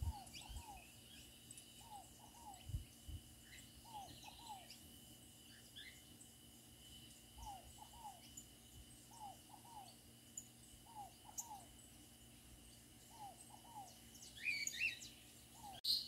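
Faint birdsong: one bird repeats a low, falling two-note call every second and a half to two seconds, while other birds give scattered higher chirps, with a burst of louder chirping near the end. A faint steady high tone and a few soft low thumps lie underneath.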